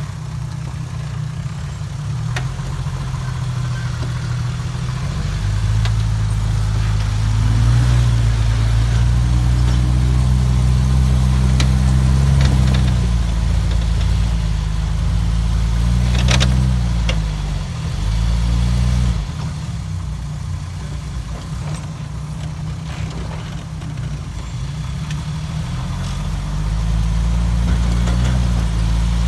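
Jeep engine working under load as it crawls over rocks off-road. The revs rise about five seconds in and hold, then drop back to idle near twenty seconds and pick up again near the end. A few sharp knocks come around the middle.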